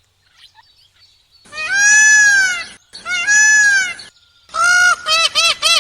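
Goose honking: two long drawn-out honks, then a quick run of short honks, about three a second, starting near the end.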